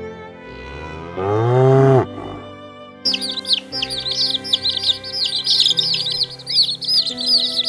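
A cow moos once, a long call about a second in. From about three seconds a crowd of small birds chirps rapidly and without pause over soft background music with held notes.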